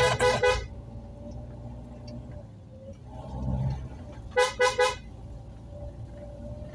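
Car horn tooting in quick short blasts, a run right at the start and three rapid toots about four and a half seconds in, sounded to warn any oncoming traffic on a narrow one-way road. Between the toots the car's engine hums steadily, heard from inside the cabin.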